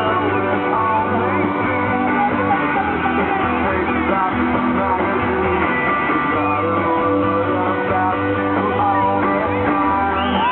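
Rock music with guitar and singing, steady and loud, with no break.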